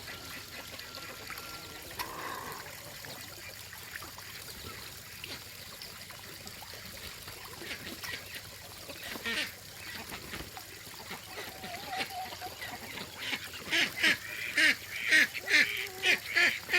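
Call ducks quacking in a rapid, loud run of short calls that starts about two-thirds of the way through and builds toward the end, over a steady trickle of running water.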